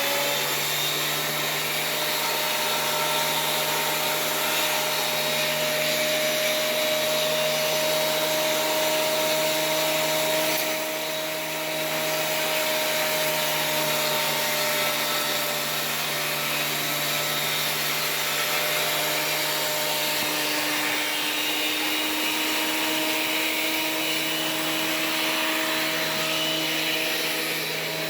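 Electric sander running steadily on rough oak boards, taking off old dust and grime: a constant motor hum over a sanding hiss, with a brief dip in level about eleven seconds in.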